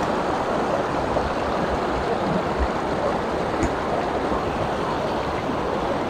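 Waterfall and creek water rushing steadily, a constant full splashing roar of fast-flowing cold water.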